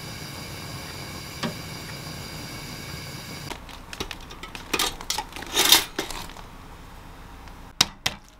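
Kitchen sounds. First an egg is set into a pot on a stovetop over a steady hum. Then a slice of bread drops into a pop-up toaster with a clatter as it is loaded and pushed down. Near the end an egg is tapped twice on a countertop to crack it.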